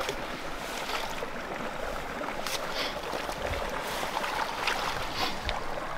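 Small creek running, a steady rush of flowing water, with a few brief splashes and rustles as hands work in the shallow water.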